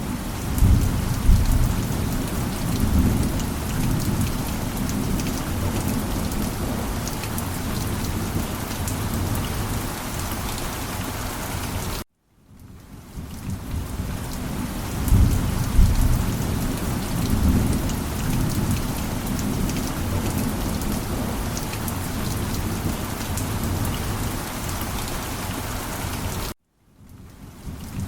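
Steady heavy rain with low rolling thunder rumbles. The sound cuts out abruptly twice, about 12 seconds in and near the end, then fades back in, each time with thunder rumbling again.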